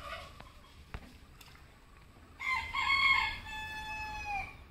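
A rooster crowing once, a call of about two seconds that starts about halfway through and ends in a long held note falling slightly at the end.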